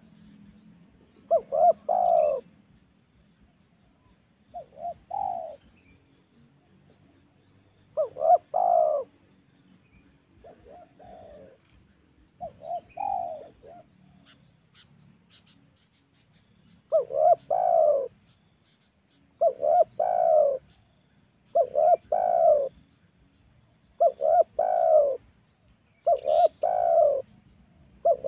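Spotted dove (tekukur) cooing, a lure call used to draw in wild doves. It gives about eleven short phrases, each a couple of quick notes run into a longer coo, with a few softer phrases among the loud ones. The phrases come every two to three seconds, most closely spaced over the last ten seconds.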